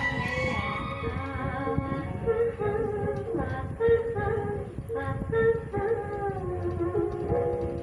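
An elderly woman singing a slow melody without accompaniment, holding long notes that waver.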